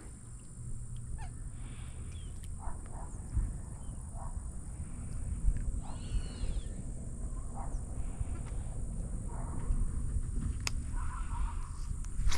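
Birds calling: an arched call twice, about six seconds apart, and scattered short chirps, over a steady low rumble and a steady high hiss.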